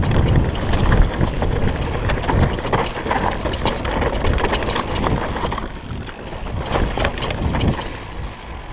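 Specialized Demo downhill mountain bike ridden fast over a rough dirt trail: wind buffeting the action camera's microphone, tyres rolling on loose dirt, and the chain and frame rattling with many small knocks over bumps. It gets quieter over the last few seconds as the bike slows.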